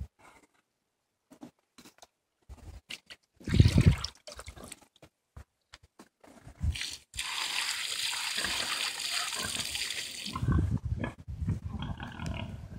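A pig grunting and snuffling as it roots beside a water trough, with a loud low thump about three and a half seconds in. Past the middle there is a steady rush of water for about three seconds, then a run of low grunts near the end.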